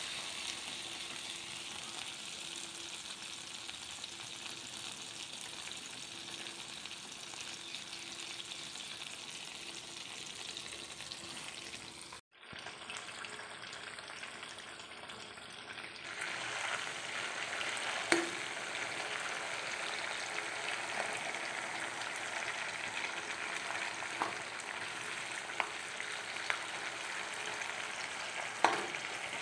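Cold milk cream (malai) sizzling and bubbling as it melts in a hot kadhai, the first stage of rendering it into ghee. The sizzle grows louder about sixteen seconds in, and a metal spatula stirring it gives a few sharp clicks against the pan near the end.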